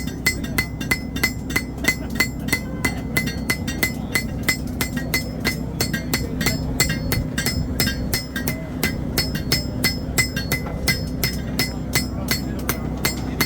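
Hammers striking hot steel on anvils, several smiths at once, about four to five ringing blows a second in overlapping rhythms, the anvil ring changing pitch partway through as different anvils dominate. A steady low hum runs underneath.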